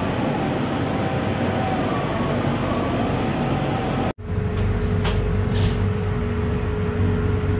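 Steady rumbling noise inside a passenger train carriage. About four seconds in it cuts off abruptly and resumes as a lower rumble with a steady hum, crossed by two brief hisses.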